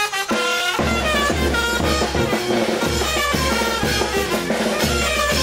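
Brass band playing the brinco del chinelo dance music: saxophones and trumpets carry the melody, and a bass drum comes in with a steady beat about a second in.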